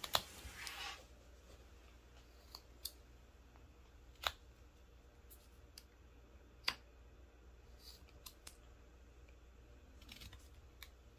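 Carving knife paring thin cuts into a wooden doll blank: scattered short, crisp clicks a second or two apart, with a brief scrape just after the start. The loudest cuts come about four and seven seconds in.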